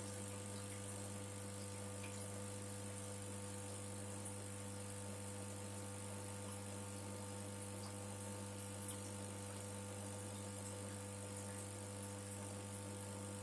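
Steady low electrical hum over a faint hiss, unchanging throughout, as from an aquarium pump running.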